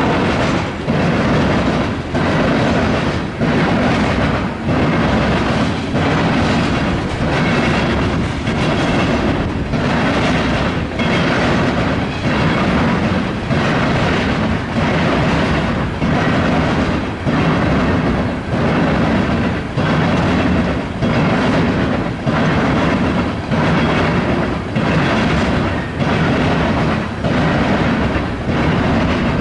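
Steel wheels of a loaded BNSF coal train's hopper cars clattering over the track and diamonds as the cars roll past, with a steady rumble. The clickety-clack repeats in a regular pattern about every one and a half seconds, once for each passing car.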